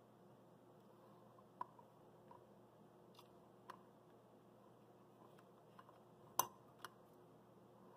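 Near silence broken by a few faint clicks and taps as a plastic syringe is uncapped and dipped into an open metal can of rubber cement, the sharpest tap about six and a half seconds in.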